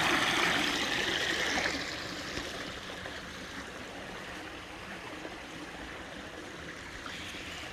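Creek water running and spilling over small waterfalls, louder for the first second or two and then settling to a steady, quieter rush.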